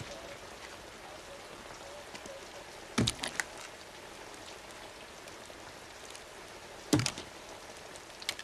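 Steady rain, with two short clusters of sharp metallic clicks, about three seconds in and again about seven seconds in: a gun being handled and loaded, a round chambered.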